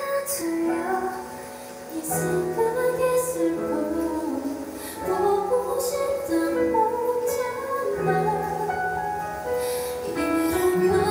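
A woman singing a ballad live into a handheld microphone over backing music, holding long notes.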